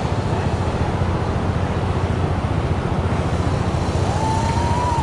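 50cc youth dirt bike engine running under throttle, a rapid steady buzz of firing pulses, heard from the rider's helmet. A brief thin high tone sounds near the end.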